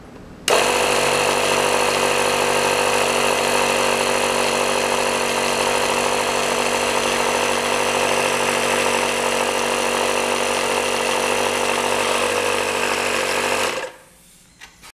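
Air compressor running steadily, blowing air through a straw into a balloon inside a submerged bottle. It starts abruptly about half a second in and cuts off about a second before the end.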